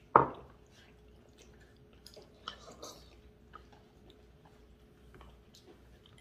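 Eating at the table: chewing and small clicks of chopsticks and spoons against ceramic bowls. One short, loud bump right at the start, then scattered soft clicks and mouth sounds.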